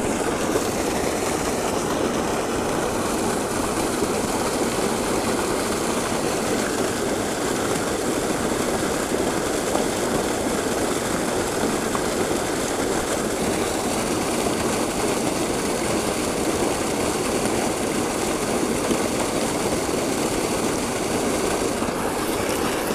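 Water gushing out of a spillway culvert pipe and pouring into a creek pool, an even, unbroken rush of water.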